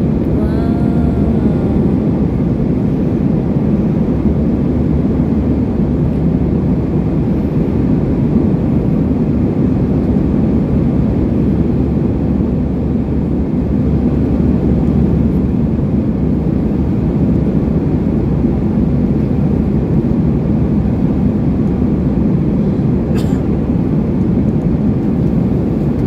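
Steady low rumble of jet airliner cabin noise in flight: engine and airflow heard from a passenger seat.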